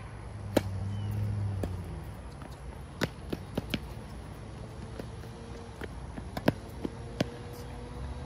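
Tennis ball struck by rackets and bouncing on a hard court during a rally: a sharp serve hit about half a second in, then scattered hits and bounces, the loudest about six and a half seconds in. A low hum runs under the first two seconds.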